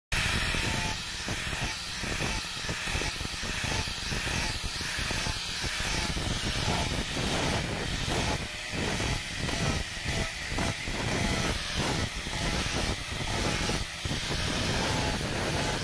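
Angle grinder with a sanding disc running and sanding a wooden speargun stock to level the wood-dust filler. The grinding comes and goes as the disc is pressed on and eased off the wood.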